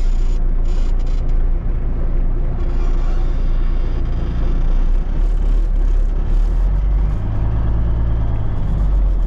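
Kenworth K100 cabover's diesel engine running under way, heard from inside the cab along with road noise. About seven seconds in, the engine note deepens and strengthens for a couple of seconds.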